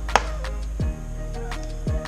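Background music with a steady beat: deep bass notes that slide down in pitch about once a second, regular ticking, and one sharp clap just after the start.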